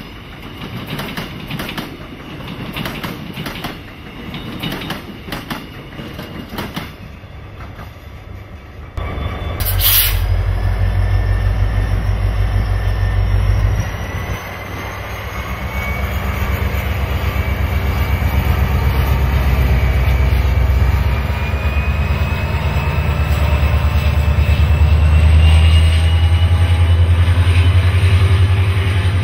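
Passenger train passing over the rails, its wheels clicking at the rail joints and fading as it leaves. About nine seconds in a deep, steady rumble starts suddenly and grows louder as a second locomotive-hauled train approaches, with a faint rising whine over it.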